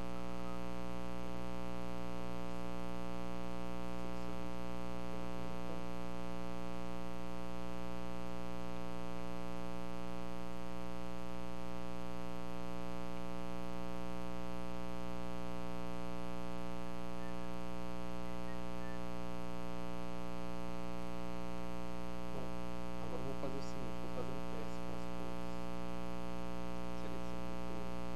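Steady electrical hum, a constant buzz with many evenly spaced overtones that does not change.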